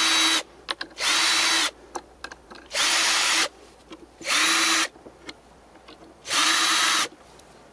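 Power drill making a series of short runs, about five bursts under a second each with short pauses between them, as it bores pilot holes into old pallet wood.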